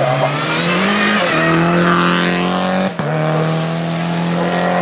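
Peugeot 308 race car's engine accelerating hard uphill. The pitch climbs about a second in, then a quick upshift cuts it briefly about three seconds in before it pulls on.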